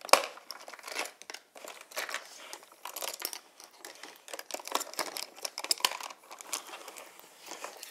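Small hard-plastic toy-playset pieces clicking, tapping and rattling against each other and the table as they are handled and folded together, in irregular strokes with a sharper click just after the start.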